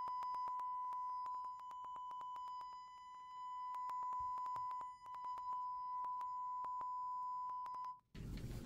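A steady 1,000 Hz test tone played through a single 6.5-inch car woofer driven by a head unit turned all the way up, with many sharp clicks crackling through it. The tone cuts off about eight seconds in, and a rush of noise follows.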